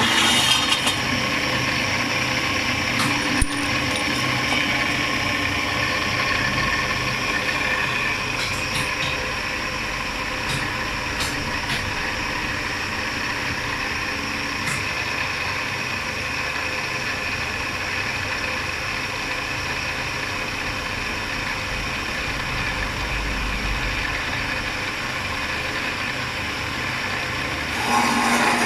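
CNC aluminium-cutting machine running steadily with a constant motor hum and whine, with a sharp click about three and a half seconds in and a few faint ticks later.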